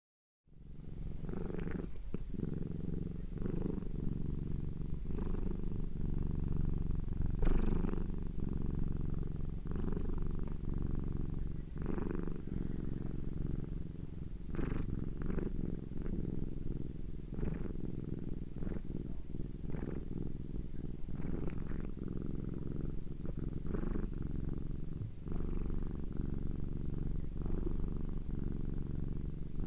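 Domestic cat purring steadily in close-up, a low continuous rumble that rises and falls softly every second or two with its breathing. It begins about half a second in, after a moment of silence.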